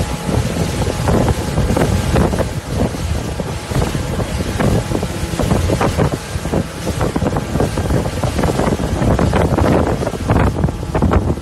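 Wind buffeting the microphone aboard a moving motorboat, a loud, gusty rush, with the boat running underneath.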